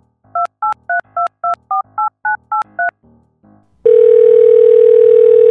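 Mobile phone keypad tones: ten quick dual-tone beeps as a number is dialled, followed about a second later by a steady phone line tone as the call goes through.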